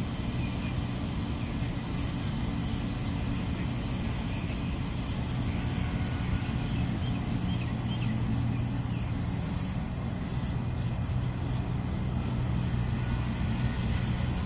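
Steady low drone of road traffic, even and unbroken, with a constant low hum running through it.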